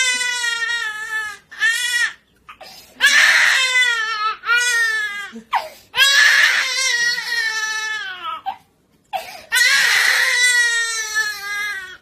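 Infant crying in a run of long, loud wails, each sliding down in pitch at its end, with short pauses for breath between them.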